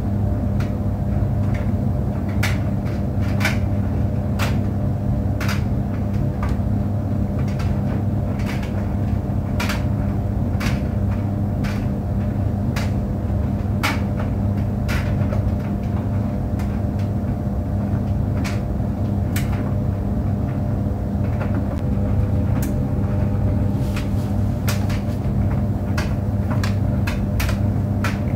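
Clothes tumble dryer running, a steady low hum from its motor and drum. Irregular light clicks and knocks from the tumbling load come through now and then.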